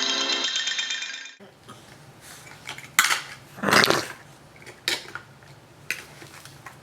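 A loud electronic tune with a fast, steady repeating pattern cuts off abruptly about a second and a half in. Then come a few scattered clinks and knocks of hard objects being handled, the loudest about three to four seconds in.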